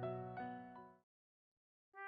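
Soft background music with sustained keyboard notes that fades out about a second in, leaving silence until a new note enters at the very end.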